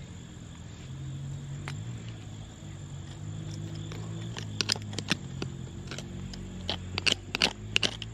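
A hand scraping and digging through loose soil and buried debris in a post hole. From about four seconds in comes a quickening run of sharp clicks and scrapes as buried glass shards knock against each other. A low steady hum runs underneath.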